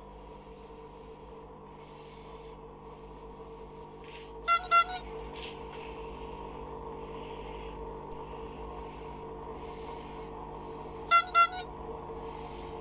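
Two short double toots from a horn, the pair sounding about four and a half seconds in and again about six and a half seconds later, over a steady low hum.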